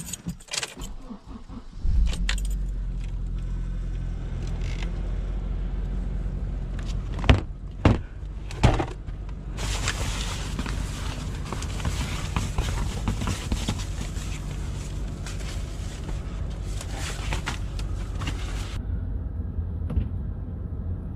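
Keys jangling, then a car engine starts about two seconds in and idles steadily. Three sharp clicks follow a few seconds later, and a loud hiss runs over the idle for several seconds before cutting off suddenly.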